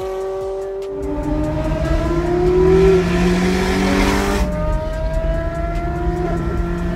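Ferrari 360 Modena's flat-plane 3.6-litre V8 accelerating, climbing steadily in pitch, then dropping sharply about four and a half seconds in as it shifts up and climbing again.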